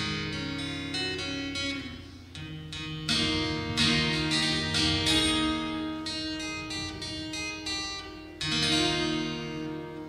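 Acoustic guitar played solo, picked chords ringing out, with fresh chords struck about three seconds in and again near the end.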